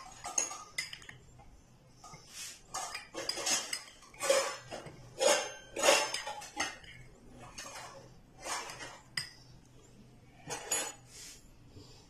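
Steel spoon stirring syrupy pieces of candied watermelon rind in a small glass bowl, clinking and scraping against the glass in uneven strokes. The strokes are loudest in the middle stretch.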